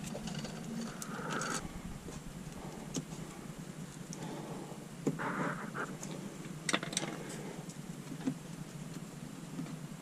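Hands handling an ABS wheel-speed sensor harness: small clicks and rustles of its plastic clips and wiring being pushed into place, with a short scraping patch about five seconds in and a pair of sharper clicks near seven seconds.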